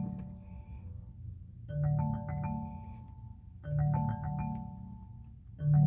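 2019 Chevrolet Malibu's audio system playing a marimba-like ringtone, a short run of chiming notes that rings out and fades, repeating about every two seconds. It is stuck ringing after an incoming phone call failed to connect, and keeps going with the engine and display off.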